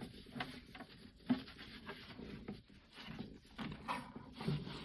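Irregular light rubbing, scuffing and small knocks as the parts of an Ecopro disc repair machine are wiped and handled, with one sharper knock about a second in.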